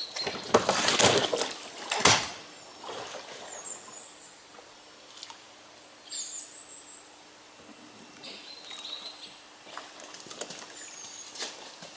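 Scraping and knocking of gear being handled in an inflatable boat at the water's edge, loudest in the first two seconds, ending in a sharp knock. After that it goes quieter, with scattered clicks and a few short high chirps.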